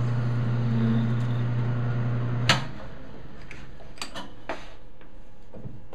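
Small metal lathe's motor running steadily while a tailstock drill bores into Delrin, then a sharp click about two and a half seconds in as the motor is switched off and the hum stops. A few light clicks follow as the lathe coasts down.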